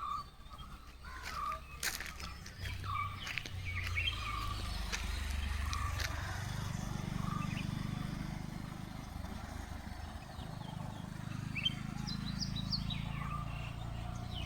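Birds chirping: one bird repeats a short call about once a second, and others give quick higher chirps, clustered near the end. A low rumble runs underneath from a few seconds in.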